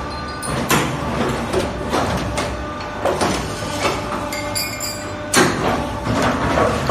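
Automatic double J-hook forming machine running, a steady hum broken by repeated sharp knocks about once or twice a second, the strongest about five and a half seconds in.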